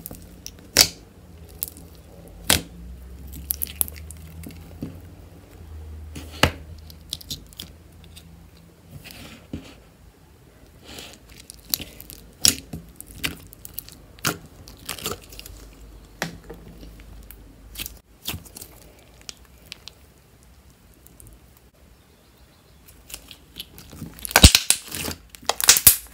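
Fingers poking and squeezing a green glue slime packed with foam beads and googly eyes: scattered wet clicks, pops and crunches. Near the end a denser, louder run of pops comes as the slime is pressed and kneaded against the counter.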